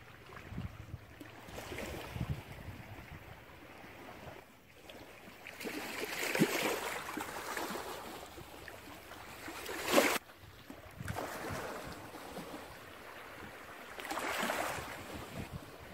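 Sea waves washing in and drawing back, swelling and fading every few seconds, with the loudest wave breaking about ten seconds in and cutting off suddenly.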